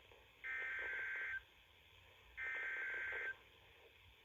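NOAA Weather Radio SAME header data bursts: two bursts of high, warbling digital tones, each about a second long and two seconds apart. They are the encoded header repeats that announce an incoming emergency alert.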